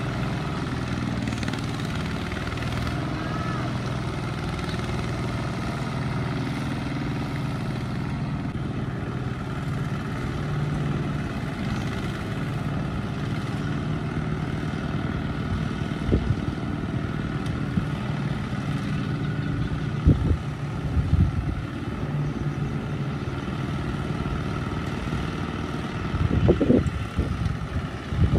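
Kubota ZT 55 walking tractor's single-cylinder diesel engine running steadily while it hauls a trailer of rice sacks out of the mud. A few sharp knocks come in the second half, with a louder, rough stretch near the end as the tractor pulls free.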